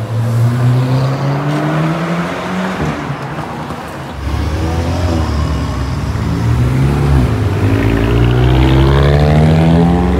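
Car engines accelerating hard, their pitch climbing, dropping back at gear changes, and climbing again. A deep rumble comes in about four seconds in, and the sound grows louder toward the end.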